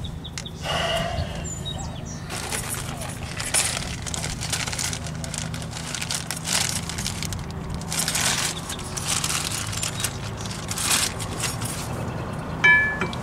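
Metal brake parts being handled and worked at a car's rear wheel: irregular scraping and rattling, with a short metallic ring near the end, over a steady low hum.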